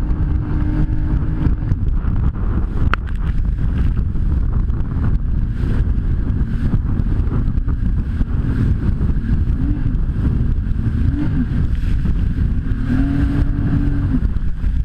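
Jet ski engine running under way, with heavy wind buffeting on the microphone. Its pitch rises and falls briefly near the middle and again near the end.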